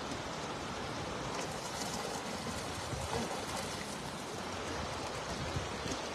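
Shallow channel water running and trickling steadily, with a few faint splashes in the water.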